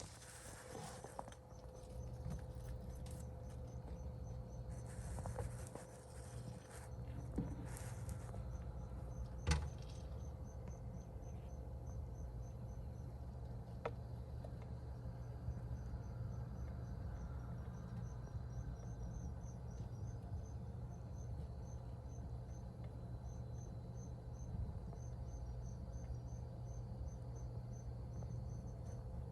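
High insect chirping in short repeated trains, sparse at first and more frequent in the second half, over a low steady hum. A few rustles and one sharp click come in the first ten seconds.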